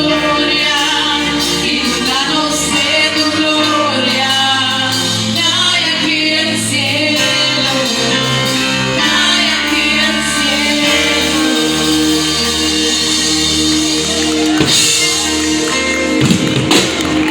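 Live gospel worship music: singing over a band with a drum kit, played loudly.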